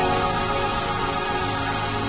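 Church worship music: sustained keyboard-style chords held over a steady low bass note, with no singing.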